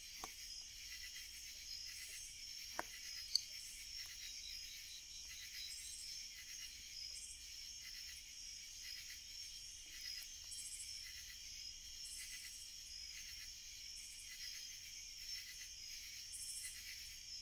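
A steady, pulsing chorus of crickets and other night insects, with a couple of sharp pops from the crackling wood fire about three seconds in.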